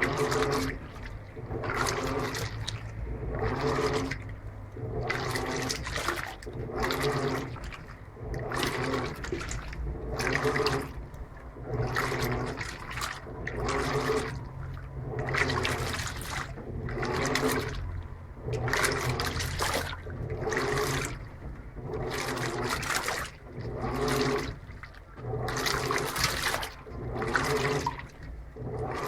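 Electrolux LTP15 top-load washing machine agitating a load in water: rhythmic sloshing and churning, about one surge a second, over the low hum of the motor.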